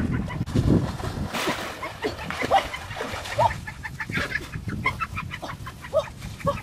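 Poultry calling: many short calls in quick succession, some overlapping, over a low rumble.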